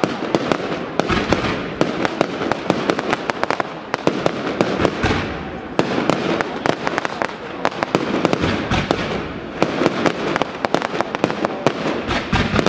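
Aerial fireworks display: shells and stars bursting in a dense, continuous string of sharp bangs and crackles, several a second.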